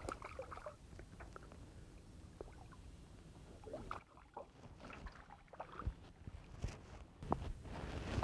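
Faint, scattered splashes of a hooked largemouth bass thrashing at the water's surface beside a small boat.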